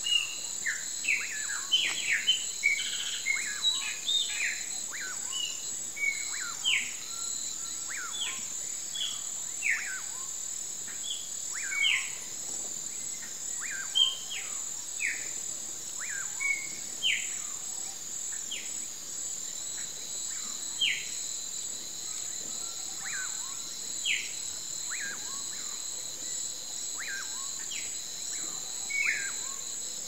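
Dusk chorus of many short, quick chirping calls from several animals, thick for the first few seconds and then scattered. Under them runs a steady high-pitched drone of crickets or other insects.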